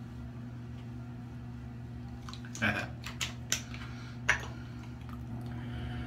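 Aftershave bottle being uncapped and handled: four short clicks and taps between about two and a half and four and a half seconds in, over the steady low hum of an electric fan.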